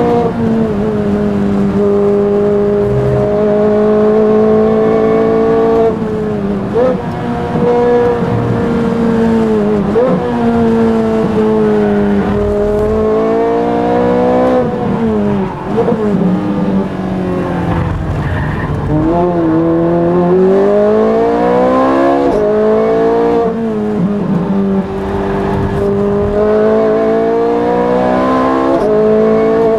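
Ferrari F430's V8 engine heard from inside the cockpit at racing speed. The revs climb in long rising sweeps, drop suddenly at gear changes, and give short quick blips as it comes off the throttle into corners.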